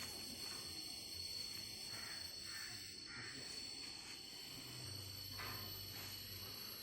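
Insects chirring steadily at a high pitch, with faint scattered calls underneath.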